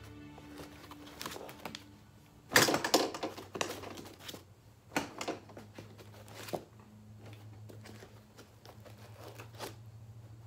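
Firearms being lifted out of a cut foam case insert and handled: scattered knocks and rustles, the loudest about two and a half seconds in, over a low steady hum.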